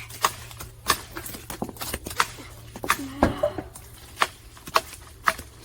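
A series of sharp, irregular clicks or knocks, roughly two a second, over a faint steady low hum.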